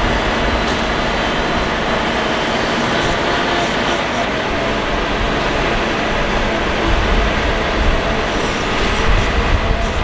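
Diesel engines of heavy crawler machines, an excavator and a bulldozer, running steadily under load. A deeper rumble surges a few times near the end.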